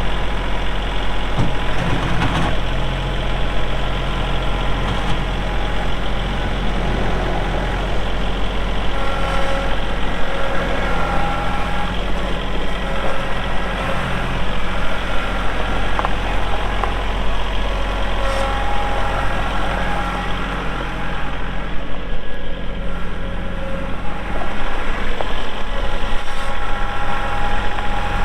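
Kubota L3301 tractor's three-cylinder diesel engine running steadily, with a hydraulic whine that comes and goes several times as the hydrostatic drive or the loader and backhoe hydraulics are worked.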